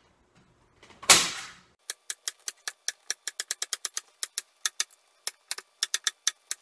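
Pool table cloth dragged taut with a loud rustling swish about a second in, then a fast run of sharp clicks, about six a second.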